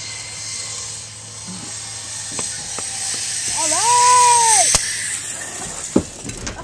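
Zipline trolley pulleys hissing along the steel cable, growing steadily louder as the rider comes in toward the landing platform. About four seconds in, a person gives one long whoop that rises and falls, followed by a sharp click and a thump near the end.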